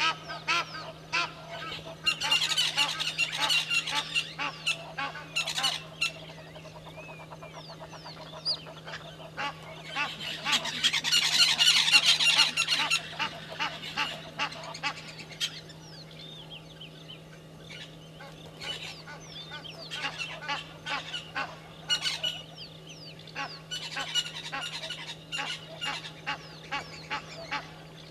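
Blacksmith lapwings calling: repeated sharp, metallic 'tink' notes that come in two dense, louder bouts, a couple of seconds in and again around the middle, which is the loudest stretch. A steady low hum runs underneath.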